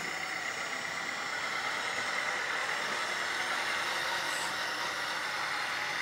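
1/14-scale LESU hydraulic RC backhoe loader driving slowly: its electric hydraulic pump runs steadily to power the steering, mixed with the truck-engine sound from the model's sound system. The sound is even and unbroken, with a steady whine in it.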